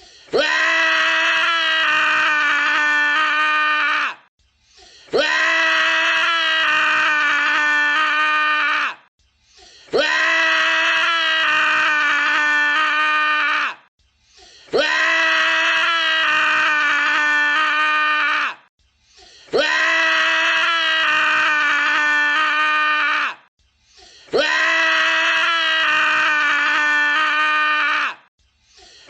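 A man screaming: one long, held scream of about four seconds, repeated identically about every five seconds as a looped sound effect, six times over with short silent gaps between.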